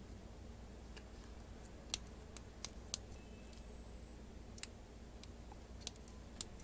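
LEGO Technic plastic parts being handled and pressed together by hand: a scatter of light, sharp plastic clicks and taps as beams are pushed onto pins. The loudest click comes a little after halfway.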